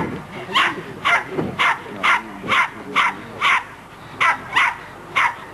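Plummer terrier barking over and over in short, high barks, about two a second, with a short pause about four seconds in.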